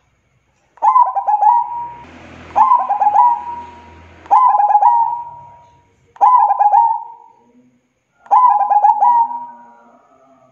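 Zebra dove (perkutut) cooing: five repeated phrases about two seconds apart, each a quick run of staccato notes ending in a held note.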